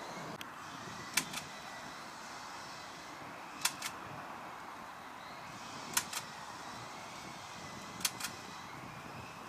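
Four pairs of sharp clicks, each pair a quick double click, coming evenly about every two seconds over a steady hiss.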